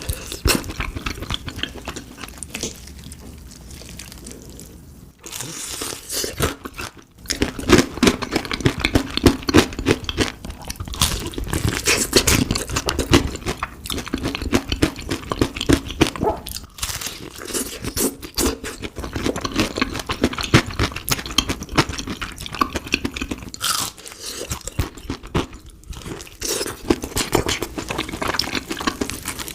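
Crispy fried chicken being bitten and chewed close to the microphone, with dense, irregular crunching crackles. The crunching is quieter for a few seconds near the start, then busier.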